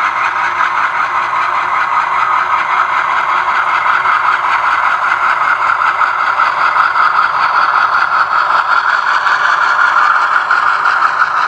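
HO-scale Conrail B36-7 model locomotive's sound decoder playing a GE diesel engine sound through its small onboard speaker, running steadily as the model moves slowly past with tank cars.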